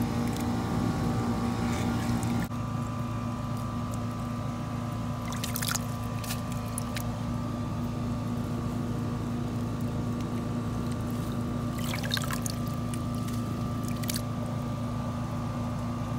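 A motor runs with a steady hum while water in a flooded pipe trench sloshes and splashes now and then as an arm works under the surface.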